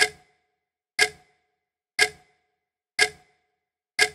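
Clock ticking: five sharp, evenly spaced ticks, one each second.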